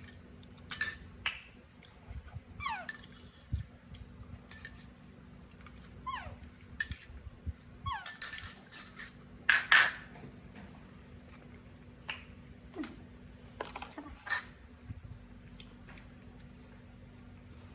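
Scattered clinks and knocks of dishes and utensils, the loudest cluster about ten seconds in, with a few short squeaks that fall quickly in pitch.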